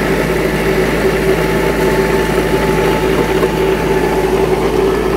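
Massey Ferguson 385 tractor's diesel engine running steadily under load, driving a rotavator that churns the soil.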